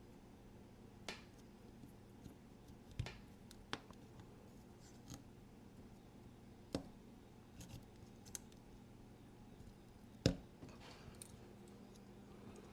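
Small metal tool working on a folding knife's parts: a handful of sharp, scattered clicks with faint scraping between them, the loudest click a bit after ten seconds in, as the knife is pried apart and its glued-in magnet is carved out.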